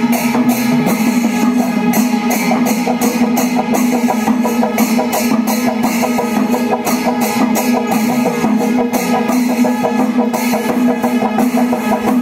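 Music with drums, a steady held tone and dense, regular percussive strikes.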